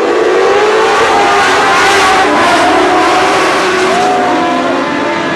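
A pack of Modlite dirt-track race cars running hard together, several small engines revving and changing pitch at once. The noise swells around two seconds in.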